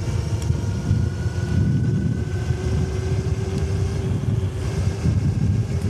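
Engwe Engine Pro e-bike picking up speed downhill: the electric hub motor gives a steady whine that rises slightly in pitch as speed builds. Wind rushes over the microphone, along with the fat tyres on a wet road.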